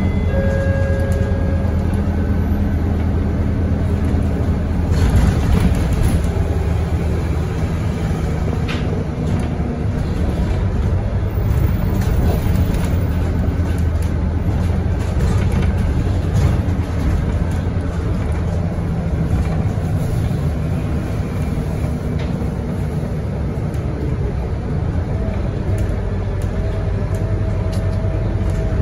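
Scania K230UB single-deck city bus's five-cylinder diesel engine running under way, heard from inside the passenger cabin: a steady low drone with road noise, its pitch shifting a little as the bus speeds up and eases off.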